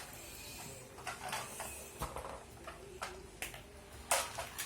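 Toy trucks being handled and set down together: scattered light clicks and knocks, with one louder clatter a little after four seconds in.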